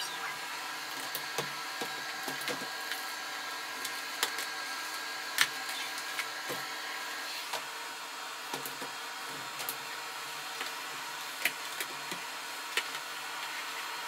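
Bagless canister vacuum cleaner running steadily with a steady motor whine, its nozzle worked along a hard floor. Scattered light clicks and knocks of the wand and nozzle, the sharpest about five seconds in.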